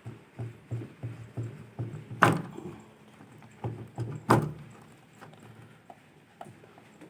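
Hands working on the washing machine's wiring: a run of soft knocks, then two sharp plastic clicks about two seconds apart, as a cable connector is worked loose and unplugged.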